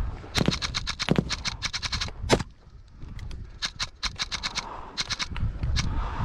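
Airsoft guns firing in rapid automatic bursts: strings of quick sharp pops at about eight to ten a second, in four or five volleys with short pauses. One louder crack ends the first volley about two seconds in.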